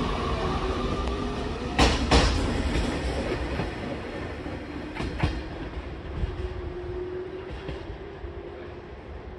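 JR Kyushu 819-series DENCHA battery-electric train rolling past and pulling away, its wheels knocking over rail joints: two sharp clacks about two seconds in and another about five seconds in. A steady running hum and tone fade as it moves off.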